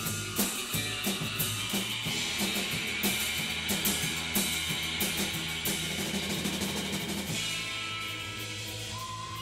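Music with a full drum kit playing a steady beat. The drums drop out about seven seconds in, leaving held notes.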